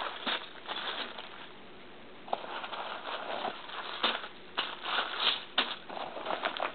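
Hands opening a mail package, with irregular crinkling and rustling and sharp clicks, pausing briefly about a second and a half in.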